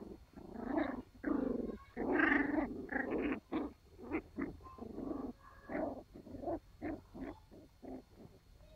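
Sealyham Terrier puppies vocalising as they play-fight: a quick, irregular run of short puppy noises, loudest and most crowded in the first few seconds, then sparser and fainter.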